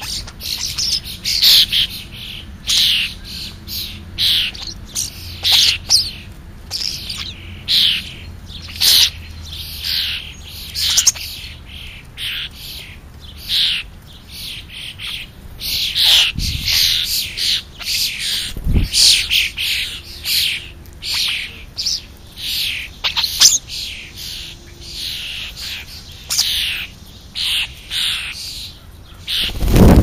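A feeding flock of European starlings calling: a steady run of harsh, short calls, one to two a second, many falling in pitch. Two low thumps sound a little past the middle.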